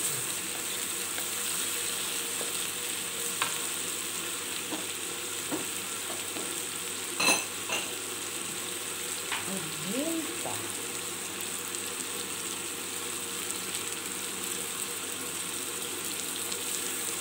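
Shrimp, sliced onion and garlic sizzling steadily in hot oil in a wok, with a wooden spatula stirring and scraping. A sharp knock with a short metallic ring comes about seven seconds in.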